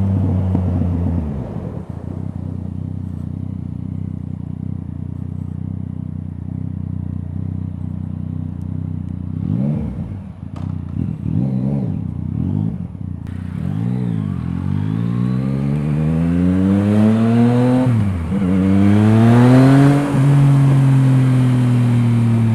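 Yamaha MT-09's three-cylinder engine through an Akrapovič exhaust, heard from on board: it runs steadily at low revs, gives a few short throttle blips about halfway through, then accelerates hard, the revs rising again and again with a quick drop at a gear change before settling at a steady higher pitch near the end.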